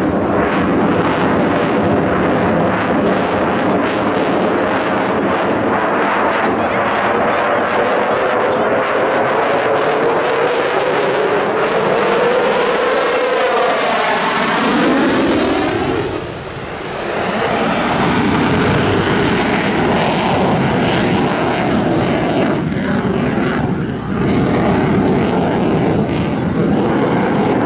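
Eurofighter Typhoon's twin EJ200 turbofan jet engines, loud and steady throughout as the fighter flies its display. About halfway through it passes close with a sweeping, phasing hiss, then the engine noise carries on as it moves away.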